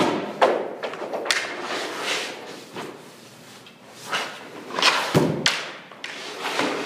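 Hockey goalie's skates scraping and leg pads thudding onto the rink surface as he drops into the butterfly and pushes back up: a string of sharp knocks and swishing scrapes, with a heavy thud about five seconds in.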